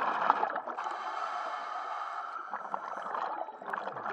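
Scuba diver breathing through a regulator underwater: a long, bubbly exhale with a rushing hiss, easing off near the end.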